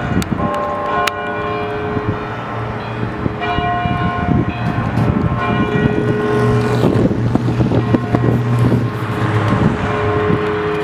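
Church bells ringing, several bells struck again and again so their tones overlap and hang on. A low hum from a passing vehicle runs under them through the middle.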